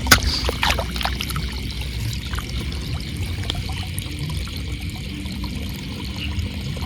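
Shallow paddy water trickling and splashing, with a sharp click just after the start.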